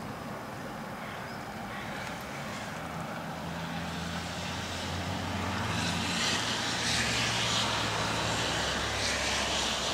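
Passing motor-vehicle traffic: a low engine hum, with a hiss that swells about halfway through and eases near the end.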